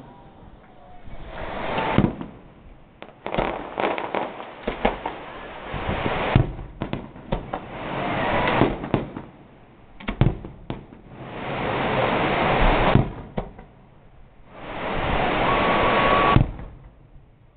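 Fireworks going off: a string of sharp bangs from bursting shells, with two long stretches of dense crackling, one a little past the middle and one near the end.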